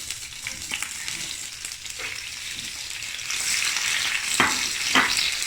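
Oil sizzling in a frying pan, the sizzle growing louder about three seconds in, with two sharp knocks near the end.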